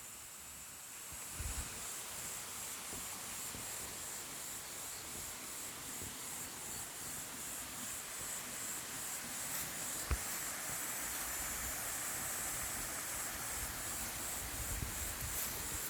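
Forest insects buzzing steadily, a high pulsing drone that grows a little stronger after the first second or so. There is a single sharp click about ten seconds in, and a few low thumps near the end.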